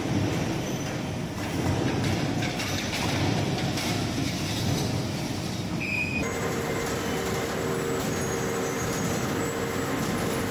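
Steel coil slitting line running: a steady, heavy mechanical rumble of rollers and moving steel strip. About six seconds in there is a short high tone, and after it a faint steady hum joins the rumble.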